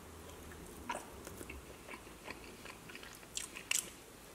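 Chewing and biting into chicken wings: wet mouth clicks and smacks, with a few louder crackles about a second in and again near the end.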